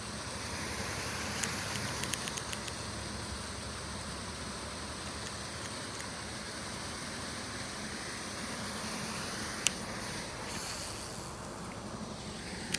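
Steady outdoor background noise with a quick run of light clicks a couple of seconds in and one sharp click near the end.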